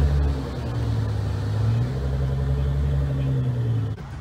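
A car engine running with a deep, steady low rumble, its pitch shifting slightly, then cutting off suddenly near the end.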